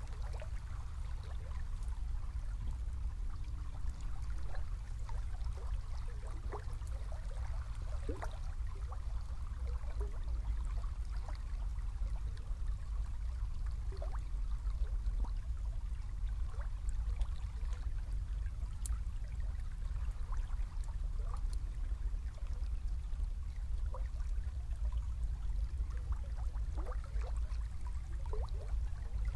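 A small river flowing past a reed bank: steady trickling and gurgling water with many small, irregular splashes, over a low steady rumble.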